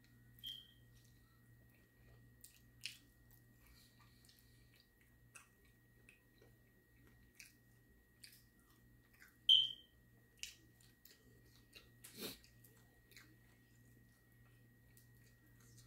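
A person eating chicken wings with their fingers: scattered wet mouth smacks, chewing and small clicks as meat is pulled off the bone, over a faint steady hum.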